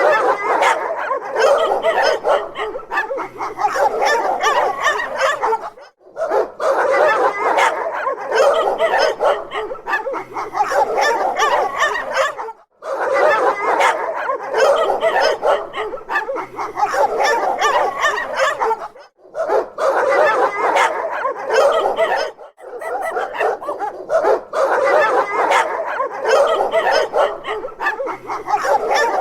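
Dogs barking and yipping in a dense, overlapping stream, with a short break every few seconds.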